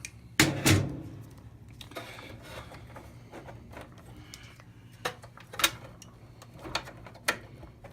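A few sharp metallic clicks and taps as needle-nose pliers work the spade connectors off the washer's wash-temperature switch terminals, two close together early and several more spread out later, over a faint steady hum.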